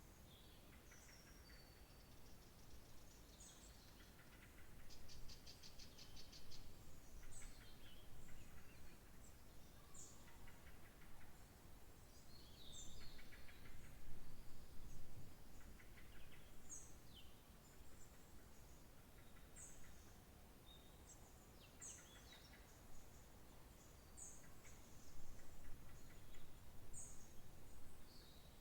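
Wild songbirds chirping and calling, faint: short high chirps every second or two, with a few rapid trills, over a steady low background rumble.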